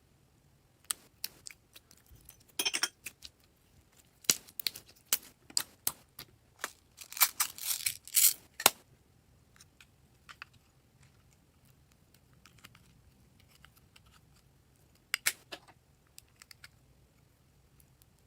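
Slime being squeezed and worked by hand, giving irregular sharp clicks and crackles, with a dense run of them about seven to nine seconds in and a short cluster near fifteen seconds.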